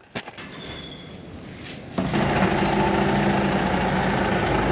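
Birds chirp briefly over a faint background. About two seconds in, a tractor-driven zero-grazing grass harvester starts running: a loud, steady machine hum that begins abruptly.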